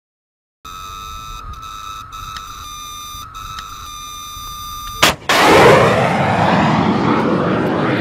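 FIM-92 Stinger shoulder-fired missile launch: a steady high electronic tone, the infrared seeker's acquisition tone, with a few brief dropouts, then about five seconds in a sharp crack as the ejection motor fires. A moment later the loud rushing noise of the flight motor igniting, fading slowly.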